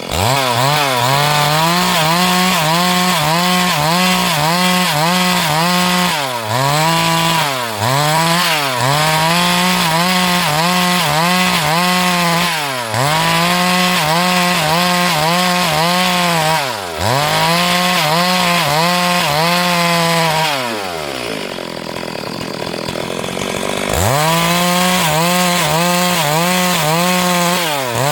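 Two-stroke chainsaw cutting through wood at high revs, its engine note sagging briefly several times under load. About twenty seconds in it drops toward idle for a few seconds, then revs back up.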